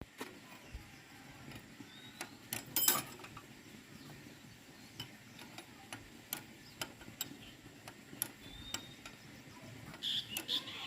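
Scattered light clicks and taps, a dense cluster of them about three seconds in, over a low background, with a few short bird chirps, most of them near the end.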